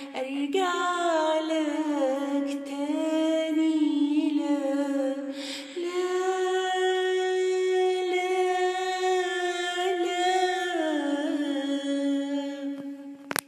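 A girl singing unaccompanied in Arabic classical style, holding long drawn-out notes with small ornamental turns, stepping up in pitch about halfway through and back down near the end. A sharp click comes near the end as the singing stops.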